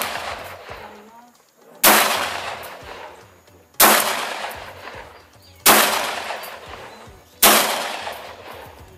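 Ekol Firat Compact traumatic pistol firing four shots about two seconds apart, each a sharp crack with a long fading tail, and the tail of the shot before fading at the start. It is shooting reloaded ammunition and cycles after every shot without a stoppage.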